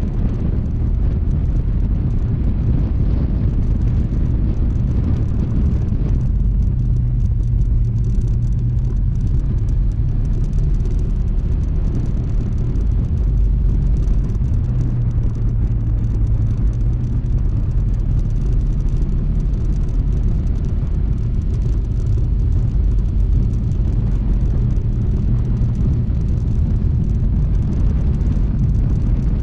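Honda ADV160 scooter's single-cylinder engine running steadily on the move, mixed with wind and road rumble. The engine note shifts slightly now and then as the speed changes.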